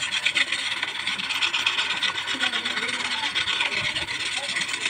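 Continuous rapid scraping and rubbing by hand on a small electric fan motor part being cleaned, a dense scratchy sound made of many quick strokes.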